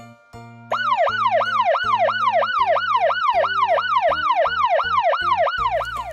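Fire engine siren sound effect, starting about a second in with a fast wail that sweeps up and down about three times a second, over light background music. It cuts off just before the end.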